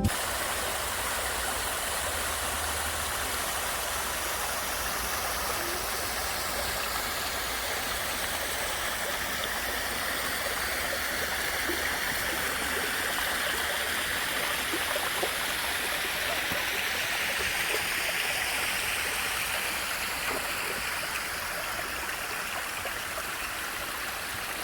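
Steady rush of flowing water from a stream or waterfall, an even hiss-like noise without breaks.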